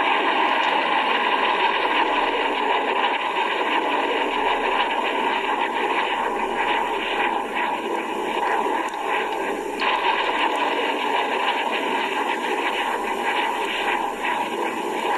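A war-film battle soundtrack played through a computer's small speakers and re-recorded: a dense, steady rush of thin, hissy noise with scattered crackles.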